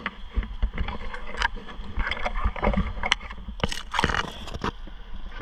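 Climbing rope and flipline being handled against a palm trunk: irregular scraping, rustling and knocks from the rope, gear and gloves against the bark.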